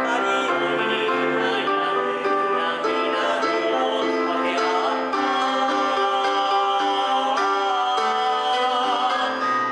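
Two male voices singing a song, accompanied by a Casio Privia digital piano played through a small Roland amplifier.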